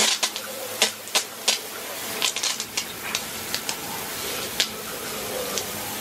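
A garden hose jet spraying water onto rubber car floor mats on concrete: a steady hiss of water with many irregular sharp splats, thickest in the first half as the spray strikes the mat.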